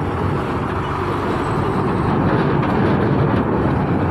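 Heavy diesel cargo truck driving slowly onto a ferry's steel loading ramp, its engine running steadily.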